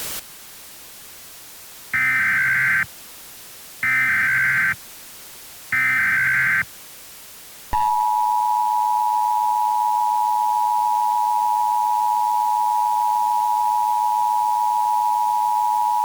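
Emergency Alert System broadcast alert: three short bursts of SAME header data tones, about two seconds apart. Then, with a click, the steady two-tone EAS attention signal starts and holds, announcing a winter storm warning.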